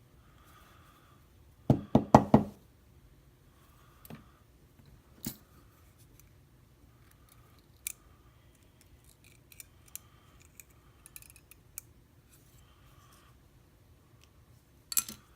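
Small metal lock parts and tools being handled: a quick run of four sharp knocks about two seconds in, scattered light clicks after it, and another short burst of knocks near the end.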